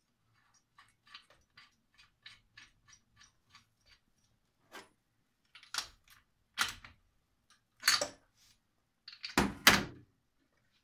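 Faint regular ticking, about four ticks a second, then several louder knocks and clatters of the spark plug cap and lead being handled and pushed back onto the moped engine's plug, the last a double knock and the loudest.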